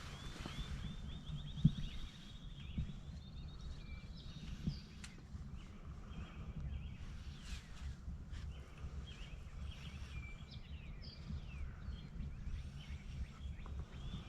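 Wind buffeting the microphone in a low rumble, with small songbirds singing and trilling over it and a few soft knocks.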